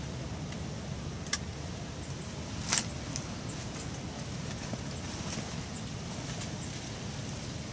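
Quiet outdoor ambience: a steady low rumble with small birds chirping faintly now and then, and two light clicks, the louder about three seconds in.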